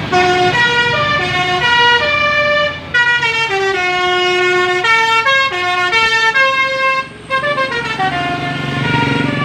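Bus 'telolet basuri' musical air horn playing a tune of short, stepped notes, with two brief breaks, then a low engine rumble near the end.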